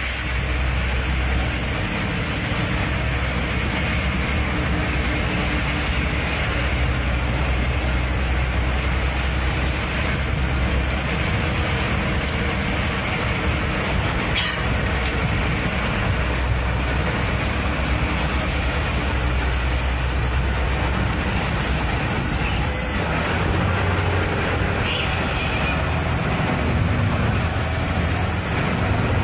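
Truck engine running steadily while driving, with road noise and a high thin whine that rises and falls in pitch.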